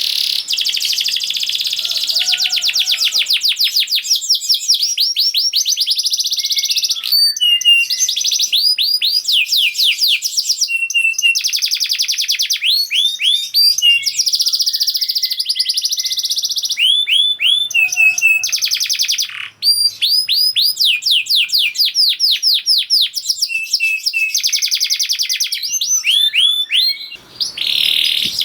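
Domestic canary singing a long, fast song: dense rapid trills alternating with runs of sharp, quickly repeated chirping notes, with only two brief breaks.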